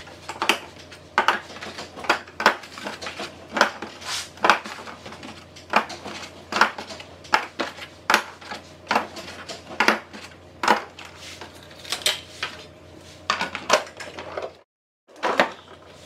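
Eggs being set one by one into a clear plastic egg container: irregular light clicks and clacks of eggshell against hard plastic, about one or two a second, with a brief silent break near the end.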